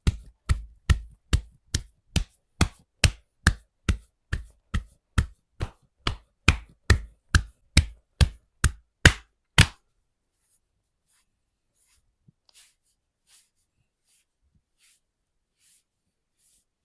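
Hands striking a person's body in percussive massage, a steady run of about three slaps a second that stops abruptly about ten seconds in, followed by faint scattered taps.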